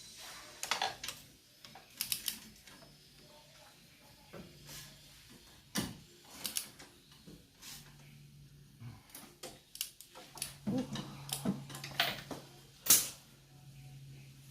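Irregular metallic clicks and clinks of hand tools and metal engine parts being handled during engine assembly, with one sharper knock near the end.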